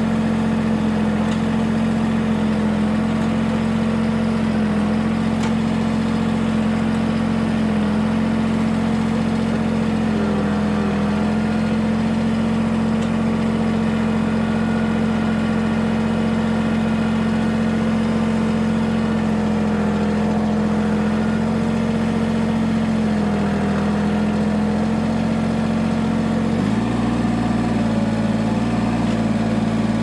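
Compact tractor engine running steadily at raised throttle while its hydraulic grapple picks up a log, its pitch dipping slightly a few times under load. Near the end its tone changes abruptly as the log is lifted.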